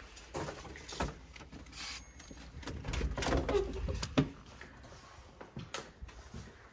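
A keycard door lock being unlocked and a metal door opened: a handful of sharp clicks from the lock, lever handle and latch, with handling noise in between, the sharpest click about four seconds in.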